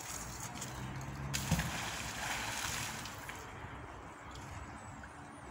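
A fishing magnet on a rope thrown into a river, hitting the water with a splash about a second and a half in, followed by a couple of seconds of water noise that fades.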